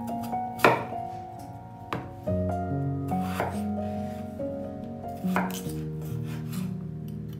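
Chef's knife slicing through a peeled raw potato and knocking on a bamboo cutting board: several sharp chops a second or two apart, over background music.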